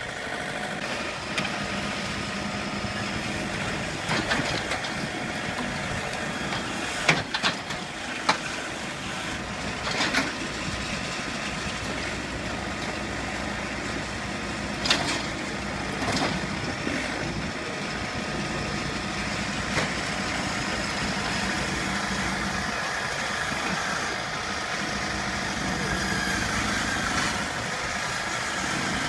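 An engine running steadily, with a few sharp knocks and clatters over it, several close together about seven to eight seconds in and more around ten and fifteen seconds in.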